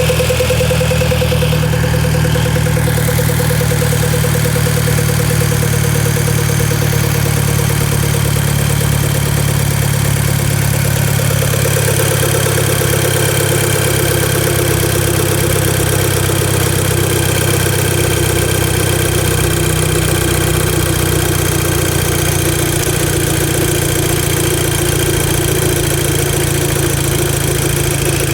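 Volkswagen Golf Mk5 GTI's 2.0 TFSI turbocharged four-cylinder engine idling steadily with an odd noise that the owner cannot place and asks whether is normal. A tone in the sound shifts lower about twelve seconds in.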